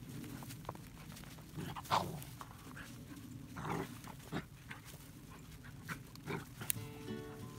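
Two Labrador retriever puppies playing together in snow, giving several short vocal sounds, the loudest about two seconds in, amid scuffling through snow and brush. Music starts near the end.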